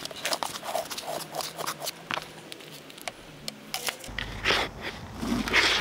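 A metal hand trowel scraping and knocking against a plastic pan and bucket as dry Portland cement and sand are tipped and scooped into the bucket: a string of short scrapes and taps.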